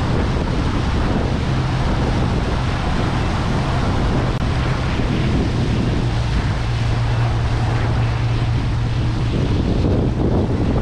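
A boat's engine running steadily at low speed, about 1,200 rpm, a constant low hum under the rush of water and wind buffeting the microphone.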